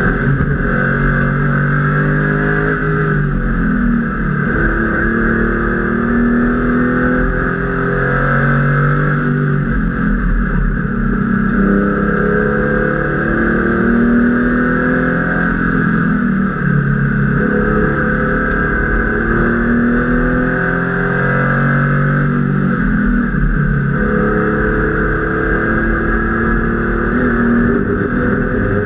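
Air-cooled Porsche 993 flat-six engine of a track-prepared RS Club Sport at racing speed, heard inside the cabin. Its note climbs in pitch under acceleration and falls back several times through gear changes and lifts, over a steady rush of tyre and wind noise.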